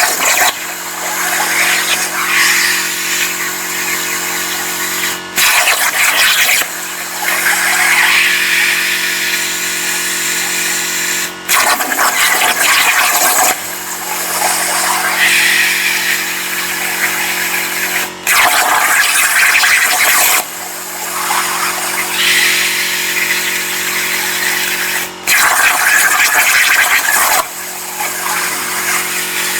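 CNC plasma cutter with torch height control cutting steel: a steady hiss and hum of the plasma arc that cuts off briefly about every six to seven seconds. Each restart is followed by a louder rush lasting a second or two as the torch fires and pierces the next cut.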